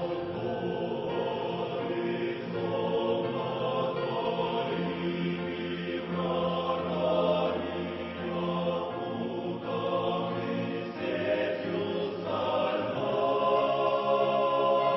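A choir singing a slow hymn in long, held chords that change every second or two.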